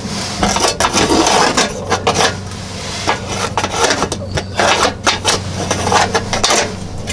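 A pencil scratching along painted wooden siding as it traces around a sheet-metal exhaust vent plate held flat against the wall, with the metal plate scraping and clinking against the boards in irregular strokes.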